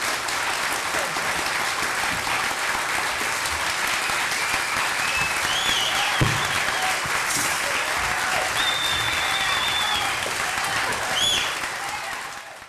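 Audience applauding and cheering, with a few high whoops, fading out near the end.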